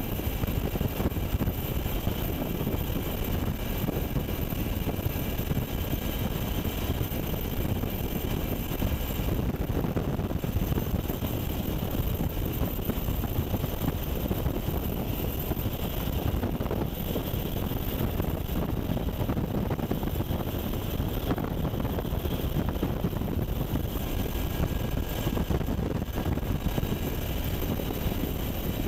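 Black Hawk helicopter in flight, heard from on board: the steady din of its rotors and twin turboshaft engines, with a steady high whine over it.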